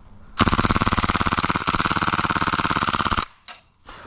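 Airsoft submachine gun firing one long full-auto burst, a fast steady rattle of shots lasting about three seconds and cutting off suddenly, followed by a click or two.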